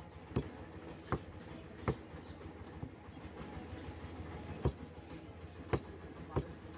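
Cleaver chopping beef on a wooden log chopping block: six sharp chops, three in quick succession, a pause of about two and a half seconds, then three more, over a steady low background noise.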